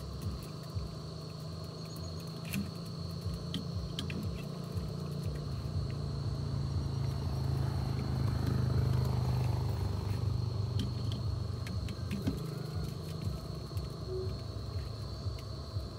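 A steady high-pitched insect drone, one unbroken tone, over a low rumble that swells about halfway through and then eases, with a few light clicks scattered through.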